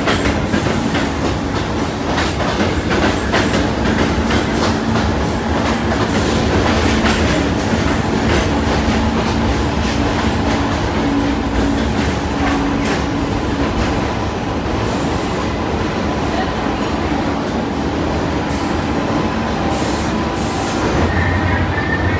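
New York City subway train running past along the platform, its wheels clacking over the rail joints over a steady rumble and a low motor hum.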